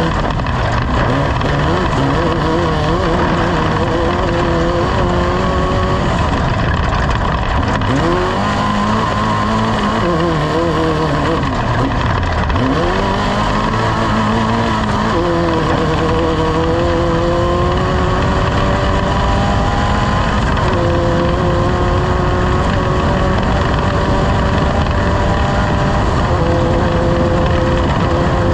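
Race vehicle engine running hard under a constant loud rush of noise. Its pitch dips and recovers several times, then climbs steadily, dropping back twice as it shifts up while accelerating.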